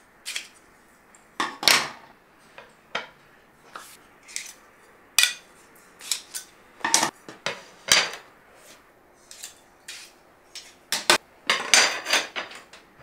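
Steel telescoping drawer slides being pulled apart and handled: irregular sharp metallic clicks and clacks, more of them close together near the end as the pieces are laid down on the wooden bench.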